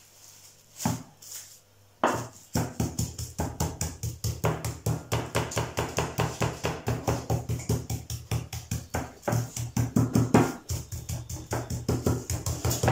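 Chicken breast fillet under plastic wrap being pounded flat on a wooden board with a mortar pestle: rapid, even blows of about four to five a second, starting about two seconds in, with a short break about ten and a half seconds in.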